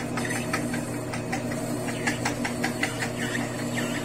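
Lathe running with a steady motor hum while the cutting tool turns an engineering-plastic bushing, with irregular scraping ticks from the cut.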